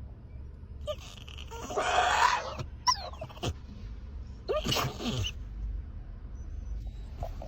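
A dog making a few short vocal noises: one about two seconds in, two brief sliding ones around three seconds, and another around five seconds, over a low steady hum.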